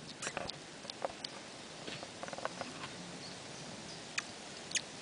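A hedgehog snuffling and rustling through grass close by: scattered short, irregular clicks and ticks.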